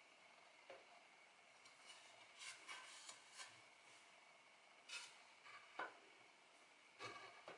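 Near silence with a few faint taps and rubs from a metal square and a wooden board being handled against a mitre saw blade.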